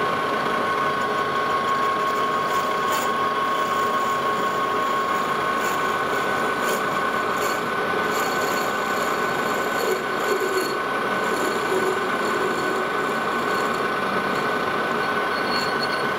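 Metal lathe running with a steady whine while a parting tool cuts into a cast-brass workpiece to part off its work-holding spout, with light scraping from the cut.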